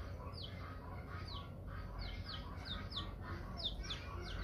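Newly hatched chicks peeping: short, high calls that slide downward, two or three a second, over a steady low hum.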